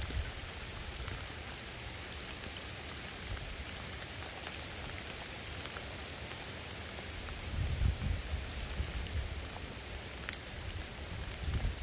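Steady rain falling on the river and riverside plants, an even hiss with scattered drops ticking close by. A low rumble swells about eight seconds in and again near the end.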